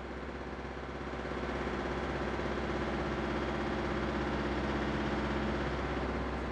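Steady low machine hum, like an engine or motor running, growing slightly louder with a low pitched drone about a second in and easing near the end.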